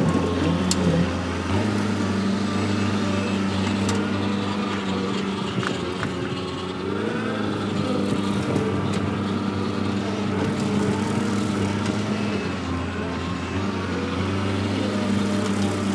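Skid steer engine running steadily, its note shifting slightly a few times.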